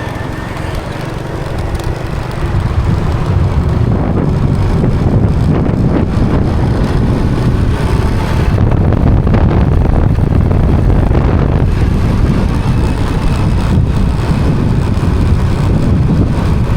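Motorcycle on the move: engine running under heavy wind rumble on the microphone, getting louder a couple of seconds in and then staying steady.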